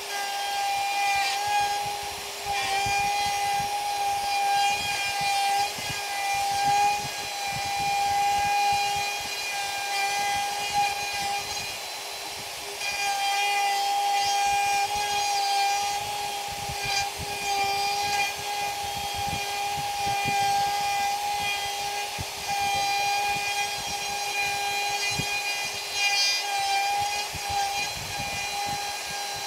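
Electric router running with a steady high whine, its cutter routing a recess out of a chipboard saw table top; the sound swells and eases as the cutter is fed through the cut, slackening briefly about halfway through.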